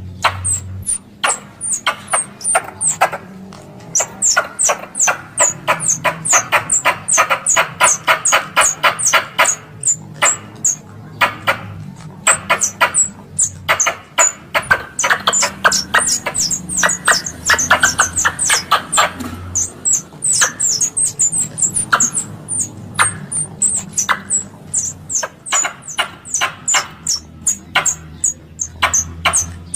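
Squirrel chattering calls used as a hunting lure: rapid runs of sharp, high chirps, several a second, each note dropping in pitch, with brief pauses between runs.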